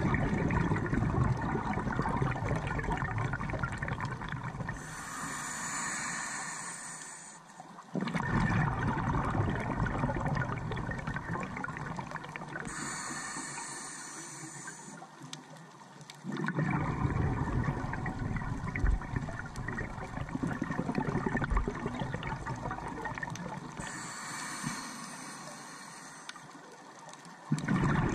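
A scuba diver breathing through a regulator, heard through an underwater camera housing. Each long exhale comes out as a burst of bubbling and is followed by the shorter high hiss of an inhale, three full breaths in all at roughly eight to ten seconds apiece.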